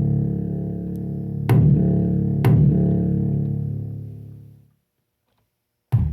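Synthesized bass notes from a 1010music Nanobox Razzmatazz: a low sustained tone, struck again twice about a second apart and then fading out, followed after a short silence by a new hit near the end. The bass carries a buzzy fuzz that the owner says is in every bass sound the unit makes and cannot be filtered out.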